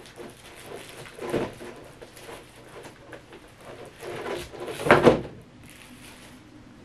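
Plastic packaging rustling and crinkling as a hand digs out the wrapped tail piece of a figure, in irregular bursts with the loudest about five seconds in.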